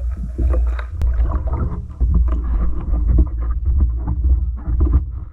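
Water churning against a camera in a waterproof housing: a steady muffled low rumble with irregular crackles and knocks, dipping quieter near the end.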